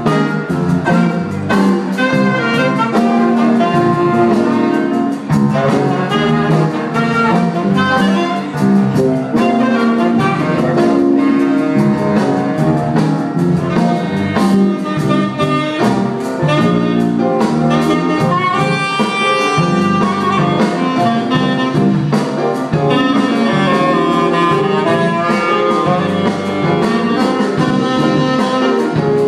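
Small jazz band playing live: saxophones carrying the tune over bass and a drum kit.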